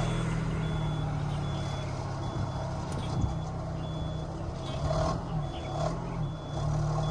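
Inside the cabin of a 2015 Mitsubishi Colt Plus with a 1.5 CVT, reversing up a slope: the engine and CVT drone steadily under load while the reverse warning beeps about once every three-quarters of a second. A few short knocks come about three seconds in and again near the five-to-six second mark. This is the transmission noise the owner is demonstrating, which the title calls a common fault of this CVT.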